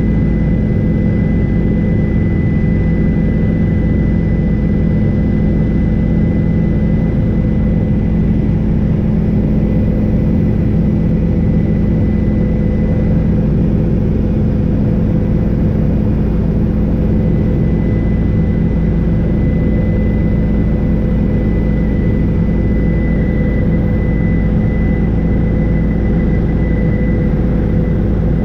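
Helicopter in flight: steady, loud rotor and engine noise, a heavy low drone with a thin high whine running above it.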